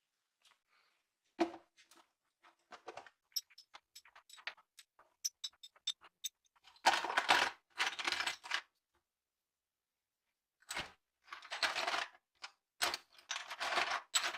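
Small metal parts of a rusted vintage scale clicking and clinking as they are handled, then several longer passes of scraping or scrubbing on the metal.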